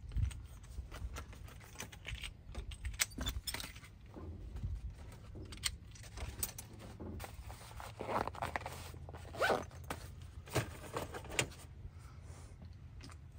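Gear being handled and put away in a truck's storage compartment: irregular clinks, rattles and rustling of small items, with a faint low hum underneath.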